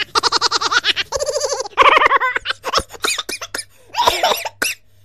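A person laughing hard in rapid, repeated 'ha-ha-ha' pulses. The laughter breaks off and starts again several times, growing fainter towards the end.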